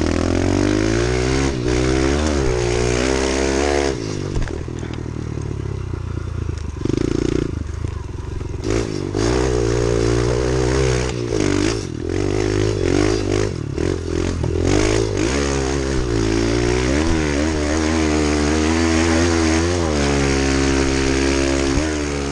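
Kawasaki KLX110 pit bike's small single-cylinder four-stroke engine being ridden hard, its pitch rising and falling again and again with the throttle. Scattered short knocks come in about the middle.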